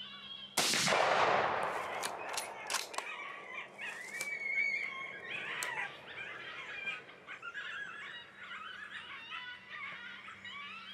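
A single rifle shot about half a second in, its report rolling away over a second or so. A few sharp clicks follow, then a string of high, wavering yelps and squeals.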